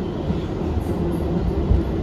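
R62A New York City subway train running, heard from a rider's position: a steady rumble of wheels on the rails. A single brief louder thump comes near the end.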